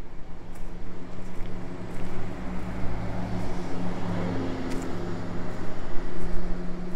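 An engine running with a steady low hum, swelling a little in the middle.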